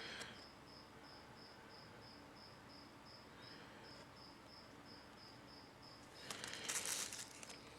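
Faint, high-pitched chirping repeating evenly about three times a second, typical of an insect such as a cricket. A brief rustle of handling comes near the end.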